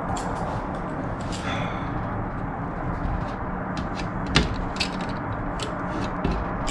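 Fluting pliers crimping the flange of a metal aircraft wing rib: a run of sharp, irregular metallic clicks and creaks as each flute is pinched in, the loudest about four and a half seconds in, over a steady background noise.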